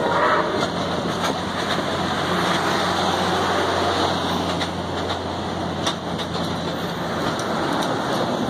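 Passenger cars of a train rolling past close by: a steady rumble of wheels on rail, with scattered clicks and a low hum that drops out near the end.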